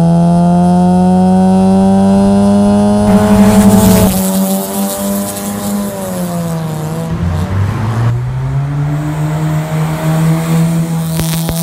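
Exhaust of a 2017 Honda City fitted with an aftermarket full exhaust system and air intake, its four-cylinder engine pulling under acceleration with a steadily rising note. About four seconds in, after a short burst of noise, the note drops in pitch and then climbs again as the car accelerates.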